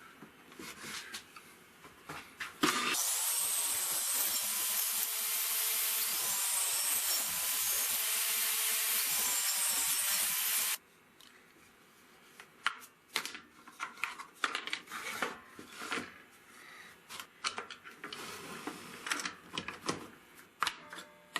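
Table saw running for about eight seconds while the sled pushes two small pieces through the blade, the pitch of the cut showing twice; it stops abruptly. Afterwards, quiet clicks and knocks of wood and a clamp being handled.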